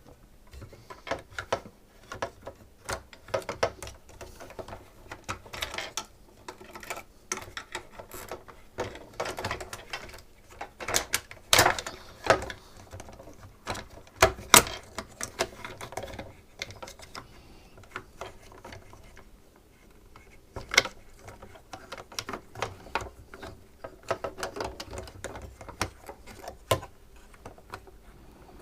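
Irregular clicks, taps and clatter of a SodaStream's plastic and metal parts being handled and worked on by hand, with a few louder knocks along the way.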